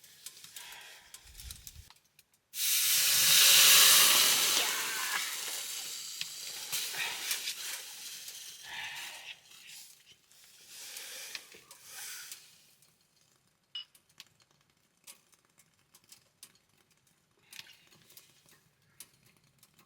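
Sudden loud hiss and sizzle from a charcoal hibachi grill, starting about two and a half seconds in and fading over several seconds into intermittent sizzling, with scattered small crackles near the end.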